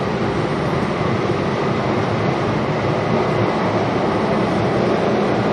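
SEPTA Broad Street Line subway train running at speed, heard from inside the car: a steady, loud rumble of wheels on rail, growing slightly louder as it goes.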